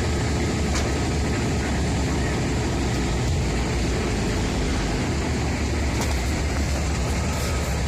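Heavy diesel engine running steadily, a dense low rumble with no change in speed.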